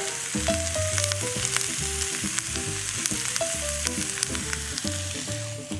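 Mangetout, carrots and zucchini sizzling in a stainless steel sauté pan, a steady frying hiss with a few small clicks. A soft melody with a bass line plays underneath.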